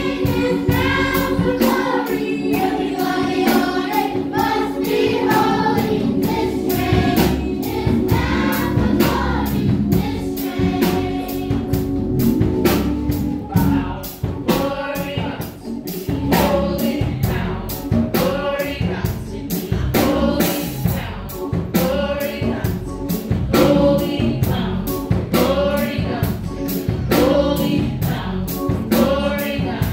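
Children's choir singing an upbeat gospel song in unison, over a steady beat.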